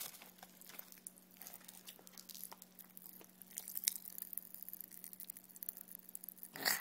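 Popping candy crackling in a child's open mouth: many tiny, rapid, irregular pops. A short louder rush of noise comes near the end.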